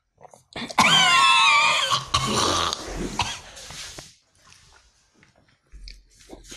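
A loud, wavering vocal cry lasting about a second, followed by scraping and shuffling as a person gets up from the table and walks off.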